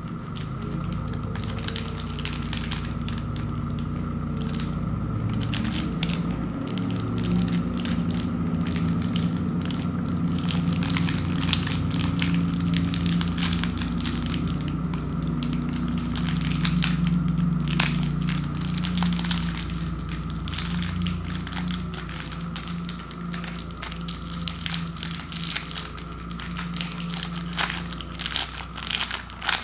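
Plastic candy wrapper crinkling and crackling in the hands as a fun-size Snickers bar's wrapper is handled and pulled open, over a steady low hum.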